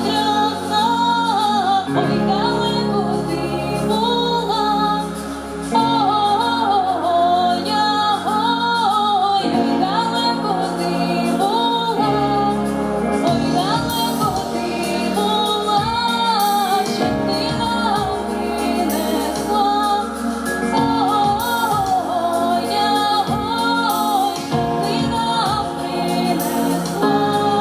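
A girl singing solo through a handheld microphone over an instrumental accompaniment, her melody rising and falling in long phrases; a beat comes in about halfway through.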